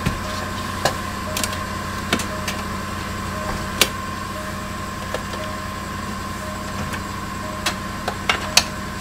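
Jaguar XF's 5.0-litre V8 idling steadily, heard from inside the cabin, with scattered sharp clicks and knocks of the glove-compartment and console lids being handled. The loudest knock comes about four seconds in, and a cluster of clicks comes near the end.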